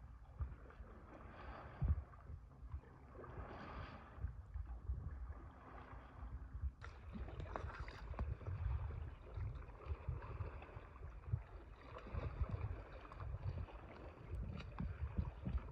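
Stand-up paddleboard paddle strokes swishing through lake water about every two seconds, over a low rumble of wind on the microphone. About seven seconds in the sound changes sharply to a steadier wash of lapping water and wind.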